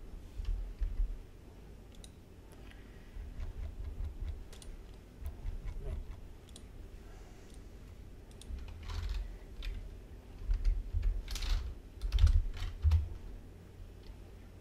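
Typing on a computer keyboard in several short bursts of keystrokes, loudest near the end.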